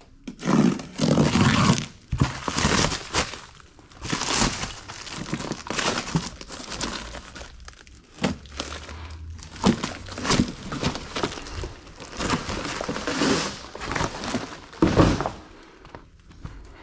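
Cardboard packaging and plastic stretch wrap being torn open and pulled apart by hand: irregular crinkling, rustling and tearing, with a dull thump near the end.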